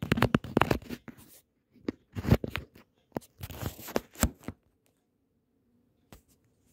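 Handling noise: a run of clicks and rustles in clusters, fading out about four and a half seconds in.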